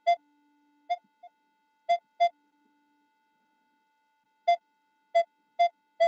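Minelab Equinox 800 metal detector giving short target beeps as the search coil sweeps over metal in the ground: about eight quick beeps, all at the same mid pitch, coming singly and in pairs with a gap in the middle. A faint steady tone hums underneath.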